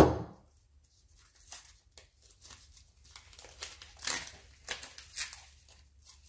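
A sharp knock at the start, then paper and tape crinkling and tearing in short scattered strokes as the fuse is pulled off a cardboard firework canister shell.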